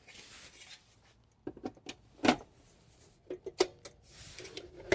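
Side cover of a Dell 7010 desktop computer case being fitted back on: soft sliding noises and a series of sharp clicks and knocks, the loudest about two seconds in.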